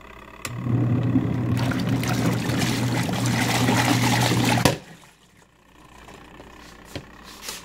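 Twin-tub washing machine's motor running with a steady hum under rushing, splashing water for about four seconds, then cutting off suddenly.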